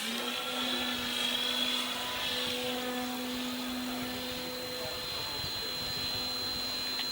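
Electric motor and propeller of an RC plane (E-flite Power 60) droning steadily in flight, holding one pitch.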